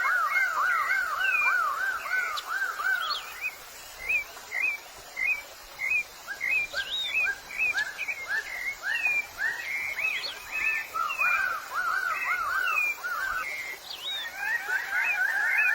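Birds of paradise calling: quick runs of short, arching whistled notes, several birds overlapping. A faster run of calls comes near the end.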